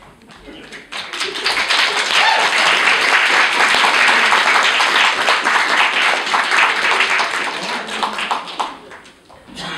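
Audience applauding, a dense clatter of many hands that starts about a second in and dies away near the end.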